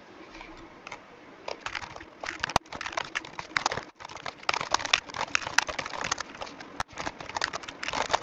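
Computer keyboard typing, sped up into a rapid, dense clatter of key clicks, broken by a few short gaps.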